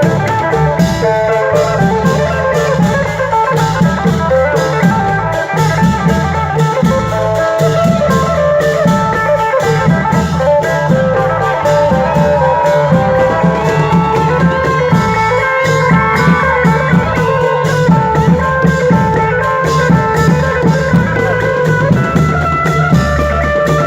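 Upbeat instrumental Thai fon dance music from a band: a plucked electric string lead carrying the melody over a drum kit keeping a steady dance beat.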